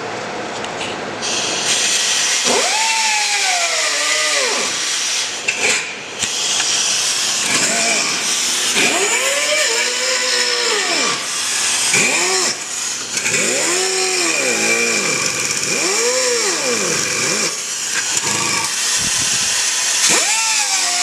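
Angle grinder with a cut-off wheel cutting through a steel exhaust pipe: a loud, steady hiss of the wheel on metal starts about a second in, and the tool's whine rises and falls several times as the cut goes on.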